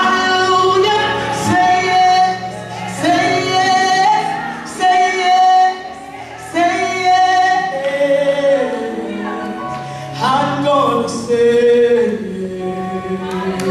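A woman singing a gospel solo into a microphone, holding long, drawn-out notes.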